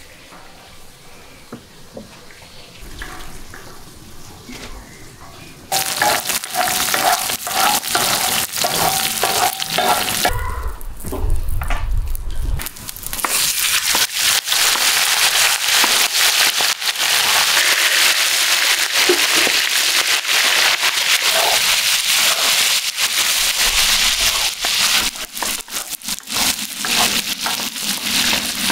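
Diced fat and lamb sizzling and crackling in a wide iron pan while a wooden spatula stirs and scrapes. The sizzle starts suddenly about six seconds in after a quieter opening, dips briefly, then runs loud and steady through the second half.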